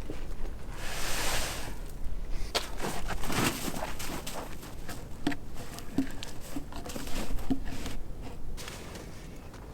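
Footsteps and rustling on the forest floor, with scattered knocks and short thuds as a long log is moved by hand; the knocks bunch up about three seconds in, and the sound gets quieter near the end.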